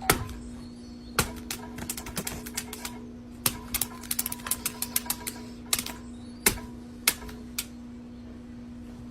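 Irregular sharp clicks and taps, some in quick runs of several a second, over a steady low hum.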